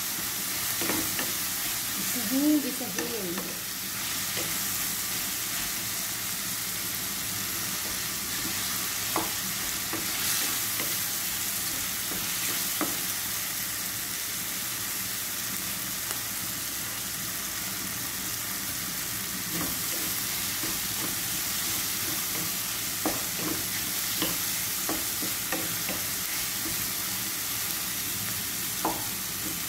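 Sliced onions, tomatoes and green chilies sizzling in oil in a nonstick pan with a steady hiss, while a wooden spatula stirs them with scattered knocks and scrapes against the pan.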